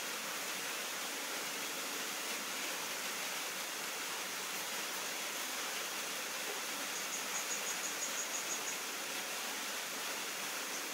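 Steady background hiss with no clear source doing anything. About seven seconds in, a short run of rapid high-pitched chirps, about seven a second, lasts a second and a half.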